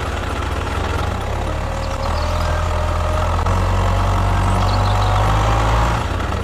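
Heavy vehicle engine running steadily with a deep rumble. It grows a little louder about halfway through and eases near the end.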